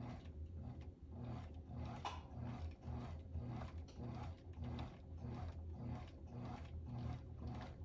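Fishing rod blank turning in a rod-wrapping jig as thread is wound over a guide foot: a quiet, even mechanical ticking about twice a second over a low hum.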